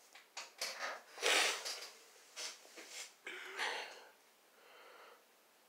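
A person making a run of short breathy noises, loudest about a second in, with a fainter one near the end.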